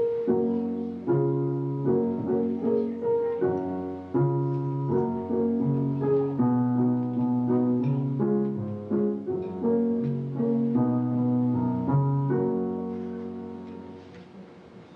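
Piano playing chords over a moving bass line, ending on a held chord that dies away near the end.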